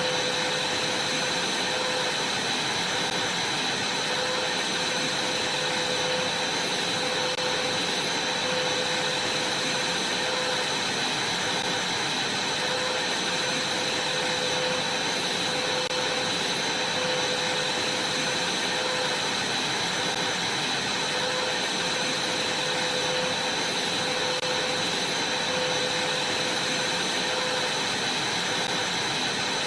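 Vacuum cleaner running steadily at full power, a constant rushing hiss with a high motor whine over it.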